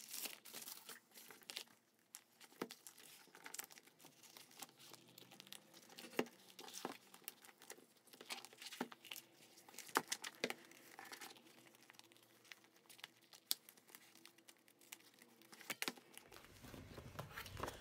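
Faint crinkling of a thin clear plastic cover-on-cover and its packaging being handled, opened and fitted over a planner's cover, with irregular sharp crackles all through.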